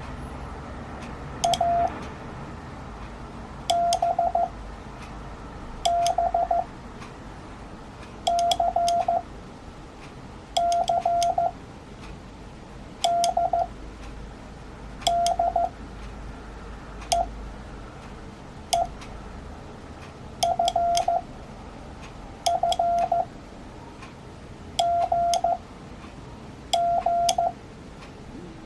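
Morse code (CW) played as a mid-pitched steady beep, one character at a time with about two seconds between characters, each a short run of dots and dashes. Each beep starts and stops with a sharp click.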